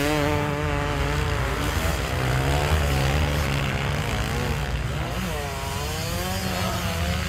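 Motocross dirt bike engines revving as the bikes ride a sand track, their pitch rising and falling as the riders work the throttle. One bike passes close about five seconds in.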